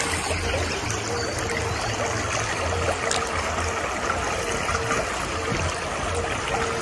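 Shallow river running over a bed of pebbles and stones: a steady trickle of flowing water.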